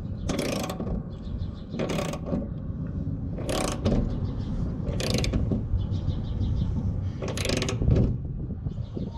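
Kobalt pass-through socket ratchet clicking in five short bursts, about one every second and a half, as it tightens a Greenlee 1.5-inch conduit knockout punch that is starting to pierce the steel panel wall. A low rumble runs underneath.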